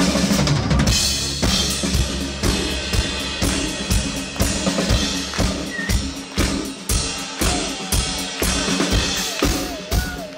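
Live rock band's drum kit pounding out a steady beat on bass drum and snare, about two hits a second, after a loud full-band opening second. A held, wavering note joins in over the drums in the second half.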